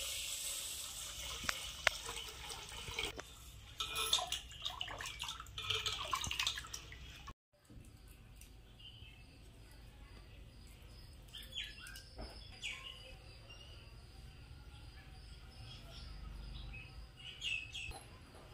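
Water poured from a brass pot onto raw rice in a clay pot, splashing and sloshing unevenly for several seconds. It then goes much quieter, with faint scrapes and a few soft taps as ginger-garlic paste is scooped from a small bowl into a clay pot.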